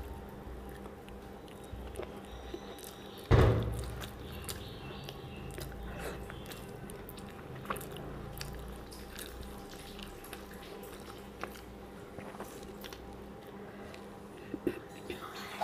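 Close-miked chewing and small wet mouth clicks of a person eating rice mixed by hand, with one loud thump about three seconds in.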